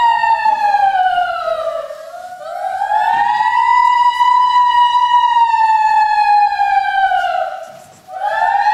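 Wailing siren played over the theatre sound system as a stage effect. A high tone with strong overtones slides down and back up in slow cycles of about six seconds, dipping lowest and quietest about two seconds in and again near the end.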